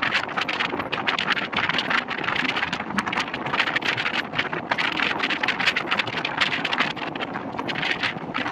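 Express train coaches running at speed, heard from the side of a moving coach: a steady rush of wind buffeting the microphone, with a fast, irregular clatter of wheels and fittings.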